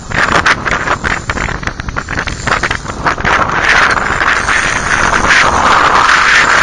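Wind buffeting the microphone on an open boat, a loud rushing noise, with scattered knocks and rattles in the first half.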